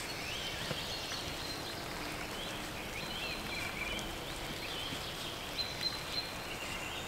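Small songbirds chirping and calling in the woods, short quick notes with a few brief held whistles, over a steady background hiss that likely includes light drizzle.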